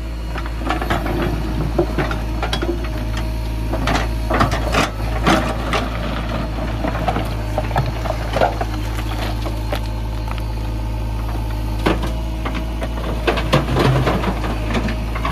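JCB backhoe loader's diesel engine running steadily while its steel rear bucket scrapes and digs into loose broken stone, with repeated clattering of rocks against the bucket. Near the end, a longer run of clatter as the stones tip out of the bucket into the tractor trolley.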